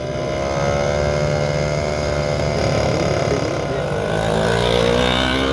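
Vintage Jawa scooter's small two-stroke engine running as it rides slowly past, its pitch rising slightly near the end.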